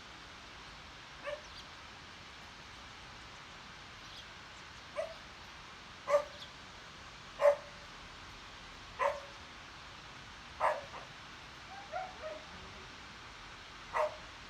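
A dog barking repeatedly, single short barks about every second and a half, louder in the middle stretch, over a steady background hiss.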